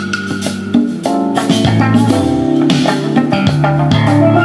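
Instrumental jazz with guitar and bass played loud through a 3-way loudspeaker cabinet with twin 12-inch woofers, driven by a 140-watt amplifier, as a sound check of the system.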